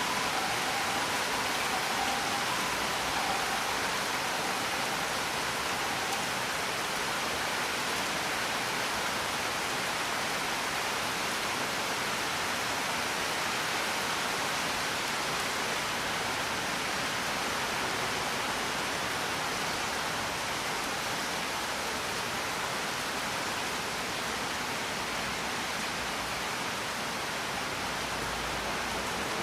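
Steady rain, an even dense hiss of falling rain with no individual drops standing out. Two faint steady tones fade out within the first few seconds.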